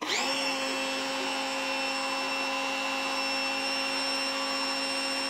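Active VE52 electric pressure washer running with the trigger held, spraying into a lidded bucket: a steady motor-and-pump whine over the hiss of the water jet. It starts abruptly and winds down in falling pitch at the very end.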